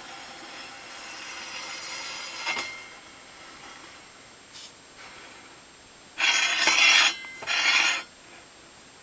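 Scraping of a piece sliding back and forth across a table saw's top: a long, quieter slide at first, then two short, louder strokes about six and seven and a half seconds in.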